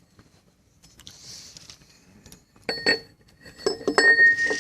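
Small steel parts of a crankshaft seal installer tool being handled, clinking against each other with short metallic rings, several in quick succession in the second half.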